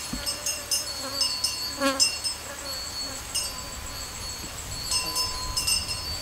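Outdoor ambience of chirping insects: many short, high-pitched chirps repeating irregularly, with a faint thin steady tone underneath at times.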